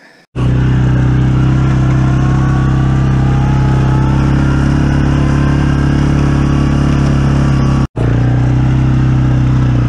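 Quad bike engine running steadily while being ridden across a field. It starts abruptly just after the start and cuts out for a split second about eight seconds in before carrying on.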